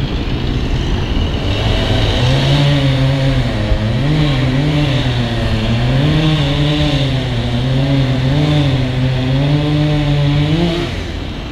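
V/Line N class diesel locomotive's two-stroke EMD V12 engine working as the locomotive draws slowly in, its note wavering up and down. The note falls and drops away near the end.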